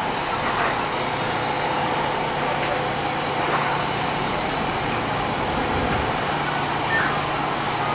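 KRL Commuter Line electric train alongside the platform: a steady electric hum over an even rumble.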